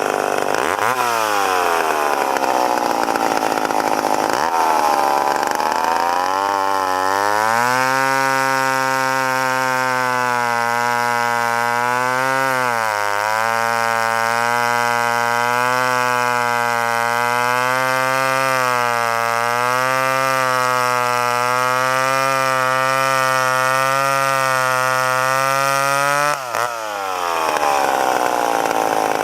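McCulloch Pro Mac 10-10 two-stroke chainsaw engine being revved up and down, then held at high revs for about twenty seconds with a brief dip partway through. The throttle is let off suddenly near the end and the revs fall, then rise and fall again.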